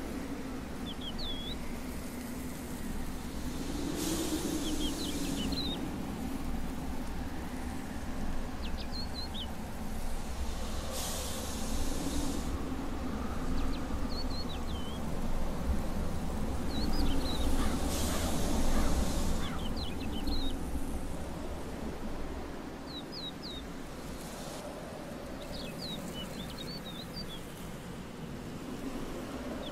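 Outdoor desert ambience: clusters of short, high bird chirps recurring every few seconds over a steady low rumble, with three longer bursts of hiss about seven seconds apart, the loudest near the middle.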